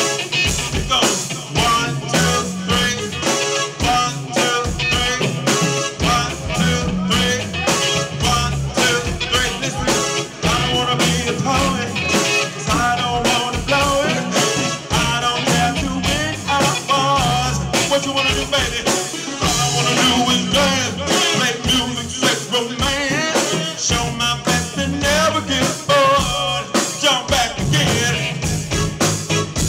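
Live band music in an upbeat blues-rock groove: electric bass, drum kit and electric guitar, with a singer's voice at the microphone at times.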